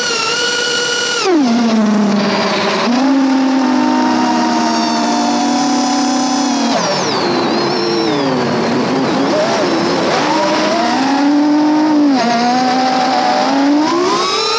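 Small FPV quadcopter's brushless motors (Xing 1404 4600kv on 4S) whining, the pitch dropping sharply about a second in as the throttle comes off, holding low, wavering, and climbing again near the end, over a rush of propeller wash.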